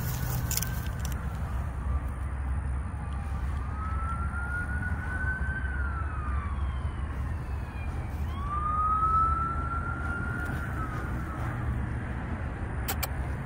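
A siren wailing, its pitch slowly rising and then falling twice, over a steady low rumble.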